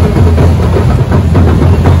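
Loud music with drumming and a heavy, deep bass.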